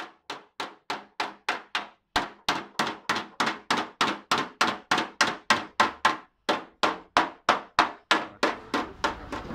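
Small hammer tapping steadily on the sheet-metal edge of a cutout in a car body panel, about three sharp strikes a second, each with a short metallic ring. There are brief pauses about two, six and eight seconds in.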